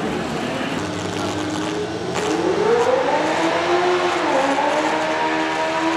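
Steady background noise, then about two seconds in a mini rod pulling tractor's engine revs up: its pitch climbs, dips briefly, then holds high and steady.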